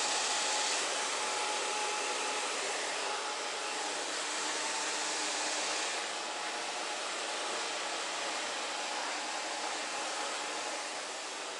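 Handheld hair dryer running steadily while blow-drying hair: an even rushing blow of air with a faint steady whine in it, dipping slightly in level about six seconds in.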